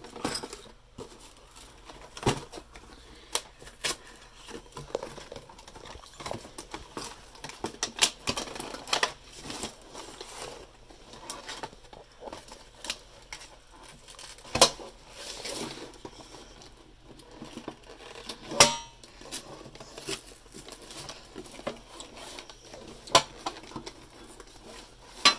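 Metal Pokémon card tin being handled and opened: irregular clicks, taps and scrapes of fingers and the lid against the tin, with two louder metallic knocks about 15 and 18 seconds in, the second ringing briefly.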